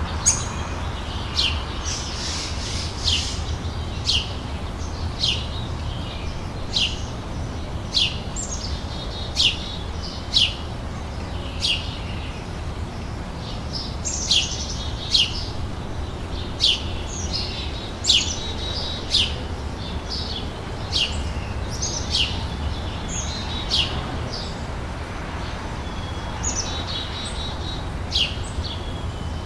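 Summer outdoor ambience: small birds chirping, with short, sharp chirps coming about once or twice a second over a steady low rumble.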